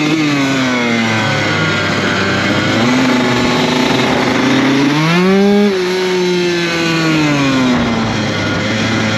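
Single-cylinder dirt bike engine under way. The revs fall off over the first couple of seconds, then climb in a quick rev about halfway through, and ease back down near the end.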